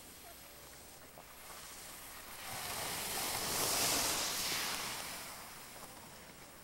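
Skis hissing and scraping over packed snow as a skier passes close by, the sound swelling to a peak about four seconds in and then fading.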